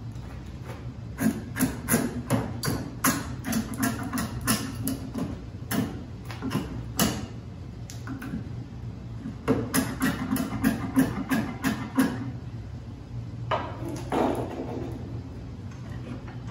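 Draw knife cutting a board held in a bench vise with quick, short strokes: runs of sharp, crisp cutting clicks and knocks, a pause, then a second run. A steady low hum runs underneath.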